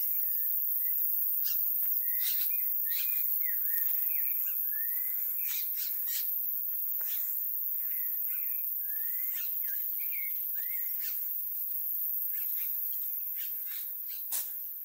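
Birds calling: a run of short whistled notes that rise and fall, repeated every half second to a second and stopping about eleven seconds in, over steady background noise and scattered clicks.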